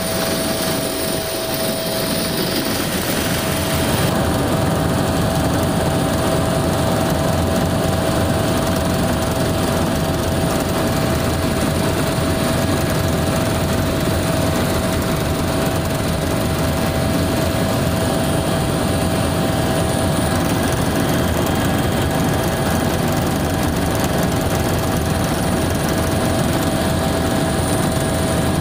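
Helicopter in flight heard from inside the passenger cabin: a loud, steady engine and rotor noise with a constant whine over it, getting slightly louder about four seconds in.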